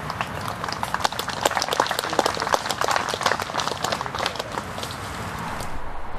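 Scattered applause from a small group of spectators, a dense patter of claps that thins out near the end.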